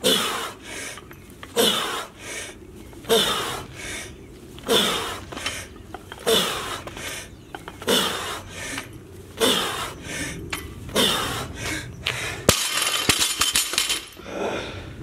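Forceful, heavy breathing about once every one and a half seconds, in rhythm with barbell thrusters. About twelve and a half seconds in, a 95-pound barbell is dropped onto concrete with a sharp crack and a clatter of metal.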